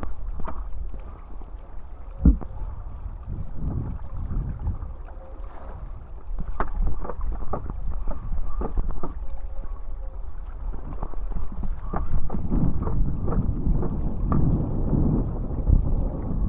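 Water rushing and splashing as a downwind foilboard rides ocean swell, under heavy wind buffeting on the microphone, with scattered small slaps and one sharp knock about two seconds in.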